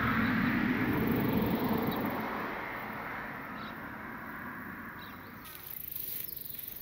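A broad rushing noise, loudest at the start, fades away over the first few seconds. Near the end come light footsteps brushing through grass.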